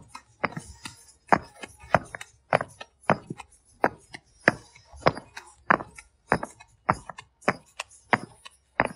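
Clay brick pavers clacking against one another as they are set down by hand, one after another: a steady run of sharp knocks, about two to three a second.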